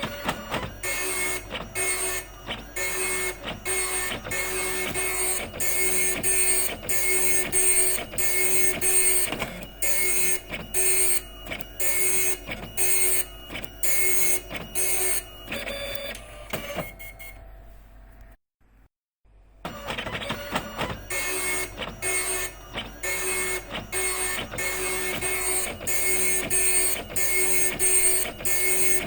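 Epson dot matrix printer printing: the print head buzzes across in rapid passes, each a second or so long, with short gaps between lines. A little past the middle the printing stops and there is about a second of silence, then the passes start again.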